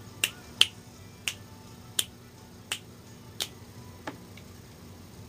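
Fingers snapping in a steady beat, about three snaps every two seconds. There are seven in all, growing fainter, and they stop about four seconds in.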